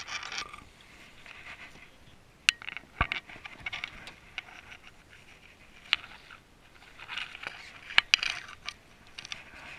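Handling noise of fishing tackle on a skiff: irregular scraping and rustling with several sharp clicks and knocks as a rod and line are worked by hand.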